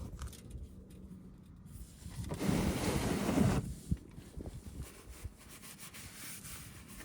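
A shop rag rubbing over the oily oil pan around the drain plug: one harsh rubbing swipe lasting just over a second, near the middle, with a few light knocks around it.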